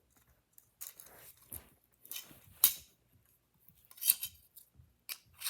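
Light clicks and scrapes from a screw-type fidget toy being handled and turned, in scattered short bursts with the strongest about halfway through.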